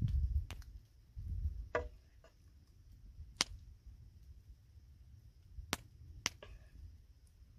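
A wooden spoon clicking and knocking against the pan and the hollowed pineapple shell while chicken fajita filling is scooped in: about six sharp, separate knocks spread out, with a low rumble near the start. A faint steady high hum runs underneath.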